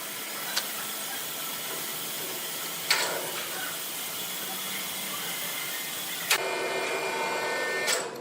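Sawmill machinery running with a steady hiss, struck by a few sharp knocks. About six seconds in a higher whine sets in, then cuts off near the end.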